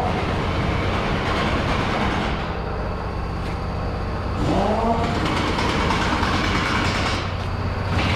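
A vehicle engine running steadily under way, with a constant low hum, and a brief rise and fall in pitch about four and a half seconds in.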